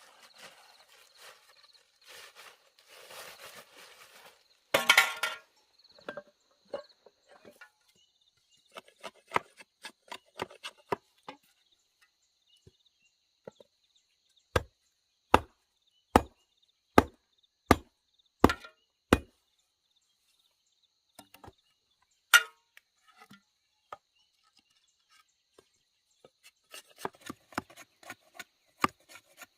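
A blade chopping wood: a run of seven sharp, evenly spaced chops a little under a second apart about halfway through, and one more a few seconds later. Lighter knocks and rustling come in between, with a short loud crash about five seconds in.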